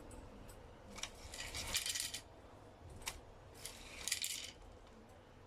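Light metallic clinking and jingling of small metal objects: a sharp click about a second in and another about three seconds in, each followed by a short high-pitched jingle.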